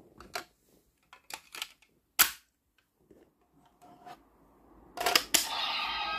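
Plastic clicks and snaps from a Premium DX Memorial Laser Raise Riser toy being handled and loaded with the Beroba Raise Card. One click about two seconds in is the loudest. Two sharp clicks near the end set off the toy's electronic sound effect from its speaker.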